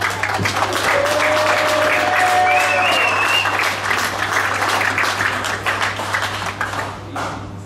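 Crowd applauding with dense clapping that tails off near the end, and a brief held whoop or whistle about two seconds in.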